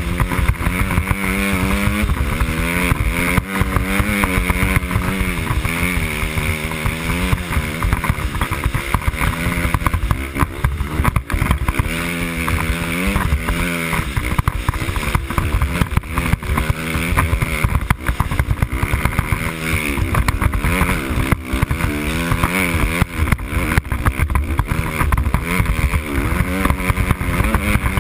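Dirt bike engine riding through snow, its pitch rising and falling again and again as the throttle is opened and eased off, with a steady rushing noise underneath.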